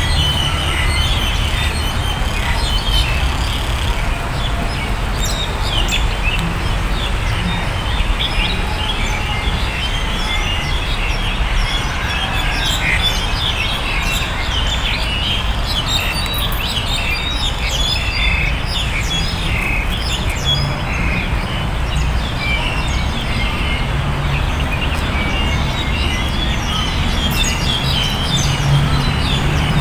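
Many birds chirping and calling in short, overlapping notes, over a steady low rumble.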